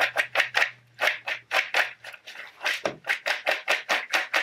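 Popcorn rattling and rustling in a large glass bowl shaken quickly by hand, several shakes a second with a couple of brief pauses, tossing the kernels to coat them with seasoning powder.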